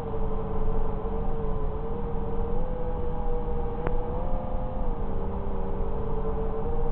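FPV quadcopter's brushless motors and propellers whining steadily at high speed over heavy wind rush. The pitch wavers and drops slightly about five seconds in, and a single faint tick comes just before that.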